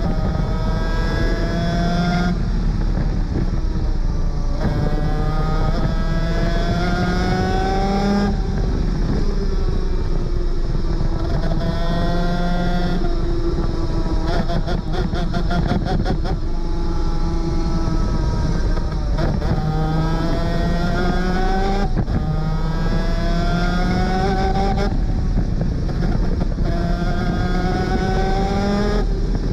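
Superkart 250's two-stroke engine at racing speed, its pitch climbing through each gear and dropping sharply at every upshift. Roughly halfway through, the note falls away into a short run of rapid crackling before it pulls up through the gears again.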